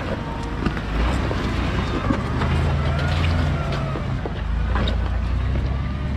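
Off-road 4x4's engine running at low revs as it crawls over rocks, with its low hum swelling a little part way through. A few sharp knocks are heard about a second in, around two seconds and near five seconds.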